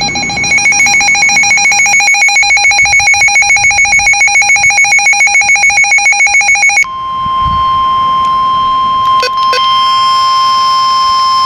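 Weather radio alert: a rapid beeping alarm at about seven pulses a second, then an abrupt switch about two-thirds of the way through to the steady 1050 Hz NOAA Weather Radio warning alarm tone. Two brief clicks come during the steady tone. Together they announce a severe thunderstorm warning.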